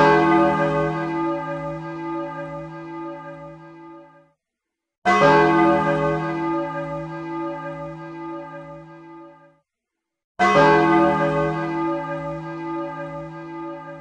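Large clock-tower bell tolling three times, about five seconds apart, each stroke ringing out and fading away over about four seconds.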